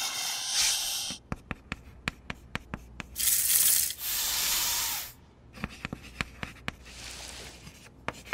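Chalk writing on a blackboard: quick sharp taps as the chalk strikes the board, between longer rasping scrapes of chalk strokes.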